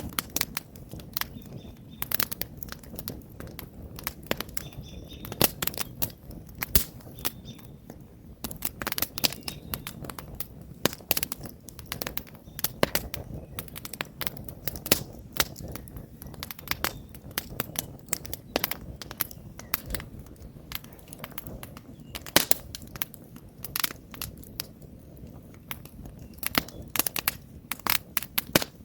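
Wood campfire burning, with irregular sharp crackles and pops from the logs over a steady low rush of flame.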